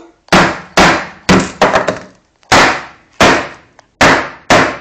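A hammer smashing an iPod on a wooden surface: about eight sharp, unevenly spaced blows, each ringing out briefly.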